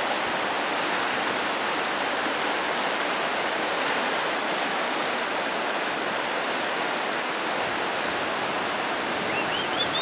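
Whitewater rapids of a slalom course rushing steadily. A few faint short rising chirps come near the end.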